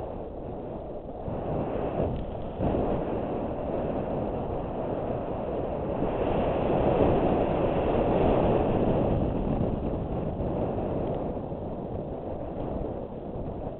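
Wind buffeting a helmet-mounted GoPro's microphone, mixed with mountain-bike tyres rumbling over a dirt fire road on a descent. The noise swells louder through the middle, with a sharp knock about two and a half seconds in.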